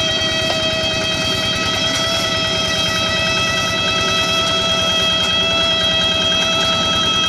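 Rice-paddy tractor engine running steadily under load, with a fast low engine beat and a loud, steady high-pitched 'nging' whine on top.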